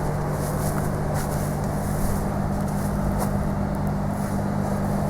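Car running with a steady engine hum that holds even throughout, with no change in pitch.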